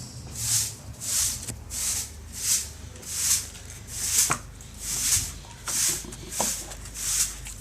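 Glitter slime being squeezed and worked by hand: a hissy squishing noise repeating about once every 0.8 seconds, with a few small clicks.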